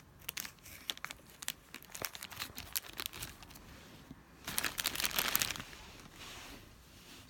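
A thin plastic toy bag being torn open and crinkled by hand, with many small crackles, busiest about four and a half seconds in.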